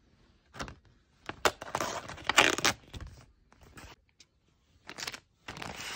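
Rustling and crinkling of a plastic mailer bag being handled, in irregular bursts, loudest about two and a half seconds in.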